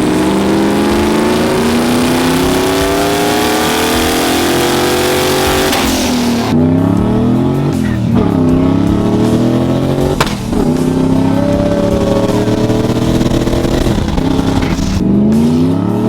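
Mustang engines accelerating: one long rising pull for about six seconds, then an abrupt change to engine sound that drops and climbs again several times as it revs.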